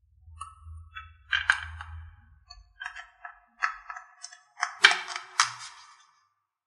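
A short string of ringing, chime-like musical pings struck one after another, the strongest near the end, over a low hum at first.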